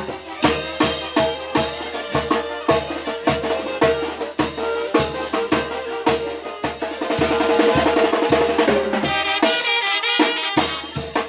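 Lively dance music with a steady drum beat of about three strokes a second under held mid-range tones; near the end the drum drops out briefly and a quicker, higher melody takes over.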